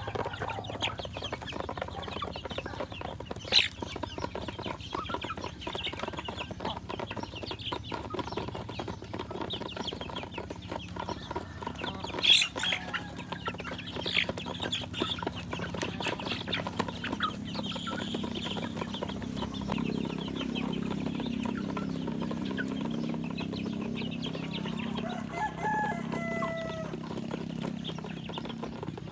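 A flock of young chickens feeding from a plate on the ground: a dense patter of beaks pecking, mixed with soft clucks and peeps. A sharp knock comes about 4 s in and a louder one about 12 s in. A low steady hum joins about two-thirds of the way through.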